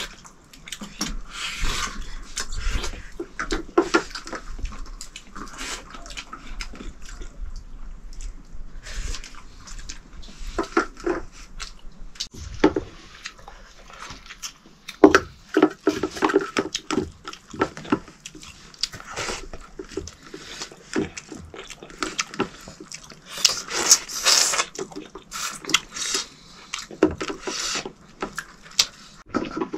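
Irregular close crunches and clicks, typical of people eating and biting.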